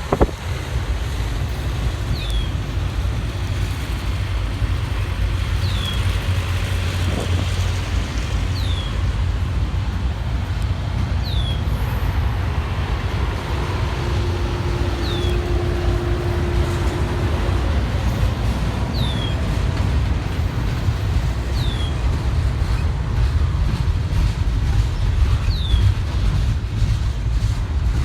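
CSX intermodal freight train rolling slowly past: a steady low rumble of wheels and cars on the rails, with faint short chirps every few seconds and a brief faint steady tone in the middle.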